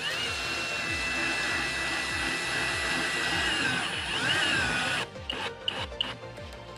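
Electric drill motor spins up and runs at a steady whine. It dips in pitch under load about four seconds in, then stops about a second later, followed by a few clicks. Background music with a steady beat plays throughout.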